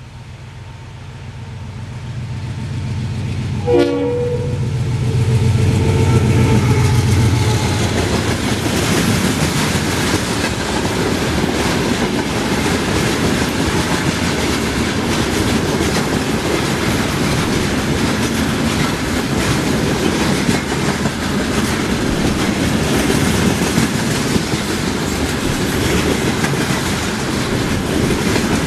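HO-scale model diesel locomotive with sound passing: a low engine rumble builds, a horn sounds about four seconds in for a few seconds, then the steady clattering of the model freight cars' wheels rolling over the track.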